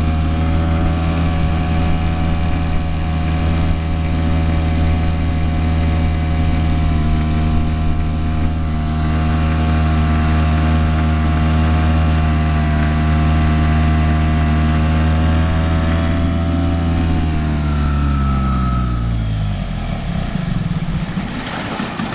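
Boat engine running at a steady speed, then slowing in pitch and stopping near the end.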